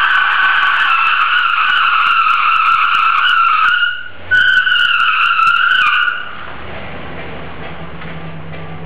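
One rear tyre of a 1982 Oldsmobile Delta 88 with a stock 307 V8 squealing loudly as it spins in a one-wheel burnout, its pitch wavering a little. The squeal breaks off briefly about four seconds in, resumes, then stops about two seconds later, leaving the engine running with a low steady hum.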